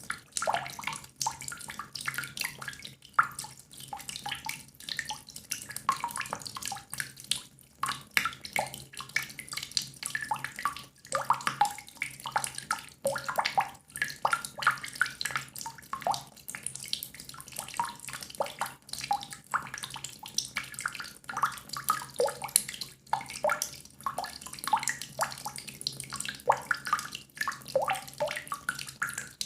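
Water drops falling into water: a dense, irregular patter of small plinks and splashes, some rising quickly in pitch, with no pause.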